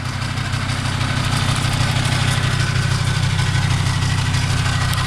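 Volkswagen Transporter engine idling steadily, carrying the noise that appeared after a new Valeo clutch was fitted, with a faint steady whine above the engine's hum.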